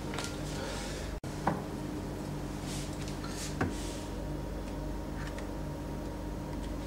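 Steady low electrical hum with two light knocks, one about a second and a half in and another near the middle, as test tubes are set down on a perforated lab bench.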